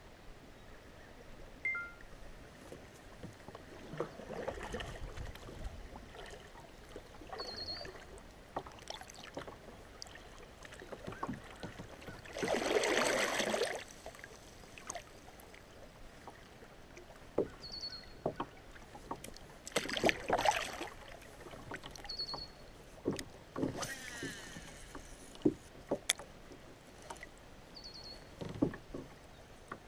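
Kayak moving on river current: water sloshing and lapping against the plastic hull, with irregular swishes and knocks. A louder splashing stretch comes about halfway through, and a few very short high chirps are heard.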